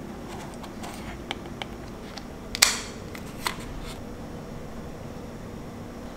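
Sony Alpha 7 IV camera body being handled, with a few small clicks, then a sharp snap about two and a half seconds in as the memory card slot door is opened, and one more click a second later. A steady low hum underlies it all.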